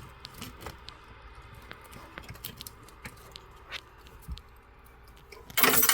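Scattered light clicks and taps of small hard objects being handled, then a loud jangling rattle near the end.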